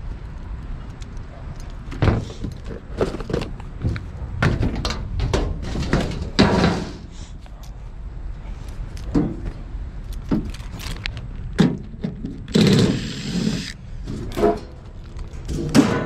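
Sheet-metal access panels on a packaged air-conditioning unit being unscrewed and lifted off: a run of metal clanks, rattles and thunks, with a longer scraping rattle about three quarters of the way in.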